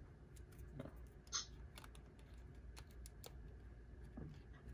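Faint scattered clicks and taps of fingers handling a Panasonic GH4 camera body, working its plastic SD card-slot door shut.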